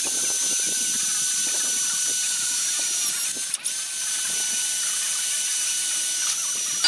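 Electric drill running at a steady high whine, drilling a hole through the grill's metal frame cross member to match the firebox. The trigger is let off for a moment about three and a half seconds in, then the drill spins straight back up.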